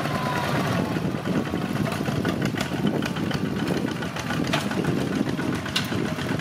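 Two-wheel walking tractor's diesel engine running steadily with a rapid even chugging, the tractor pulling a spike-tooth harrow through tilled soil.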